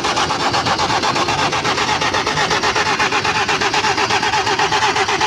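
Engine cranking over on its starter motor in a fast, even rhythm without catching. It won't start because of water in the fuel tank.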